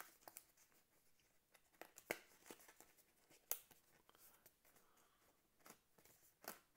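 Faint, scattered clicks and rustles of stiff paper card stock being handled, as a folded card strip of a paper Foldscope microscope is slid through its slots; the sharpest clicks come about two and three and a half seconds in.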